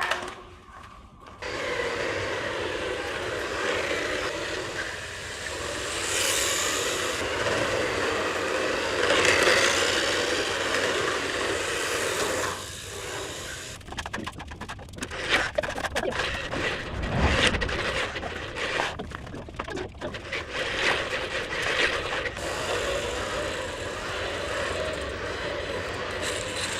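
Electric RC cars running laps on a hard floor: small motors whining, rising and falling with the throttle, and tyres scraping. A run of sharp clicks and knocks comes in the middle.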